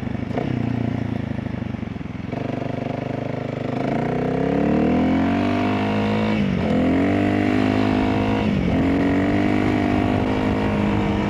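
Honda CRF300L single-cylinder engine, with opened airbox, ECU tune and LeoVince exhaust, running low at first, then revving up and holding a higher steady speed, with two quick dips in revs that recover at once.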